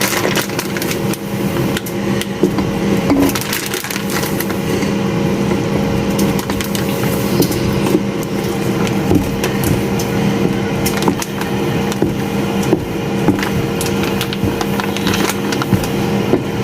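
Poundo yam flour being poured into hot water and stirred in a bowl: continuous scraping and crackling with many small clicks as the dough is worked. A steady hum runs underneath.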